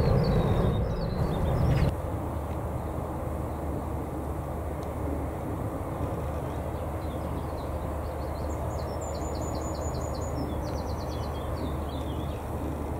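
Steady low rumble of distant jet aircraft around the airfield. It is louder for the first two seconds, then drops suddenly to a lower steady level. Near the end a small songbird sings a few quick, high trilling phrases.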